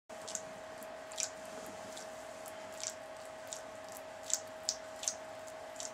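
Short, irregular wet squishing sounds of masturbation, skin sliding on lubricated skin, about a dozen in a few seconds. They sound over a steady hiss and a constant hum from the recording.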